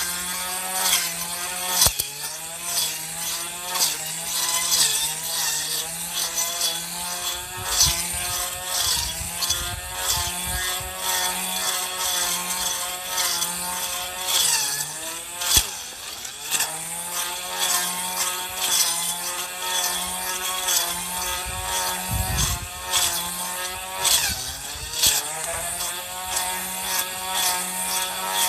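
Handheld grass trimmer with a small toothed metal blade running and cutting grass and clover: a steady motor whine rich in overtones that wavers and dips in pitch a few times, around halfway and near the end, with sharp ticks of the blade striking stems.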